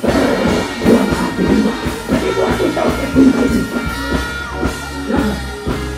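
Loud dancehall music over a live show's sound system, with a heavy bass line coming in right at the start and a voice over it.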